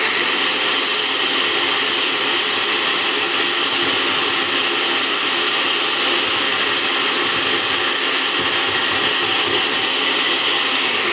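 Countertop blender running on its high setting, crushing ice in a milk and whey protein shake: a loud, steady whir that starts abruptly and begins to wind down at the very end.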